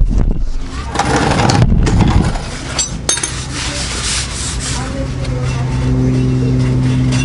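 A shop rag rubbing and wiping against the car's underbody, scratchy at first and then lighter. A steady low hum comes in about two-thirds of the way through.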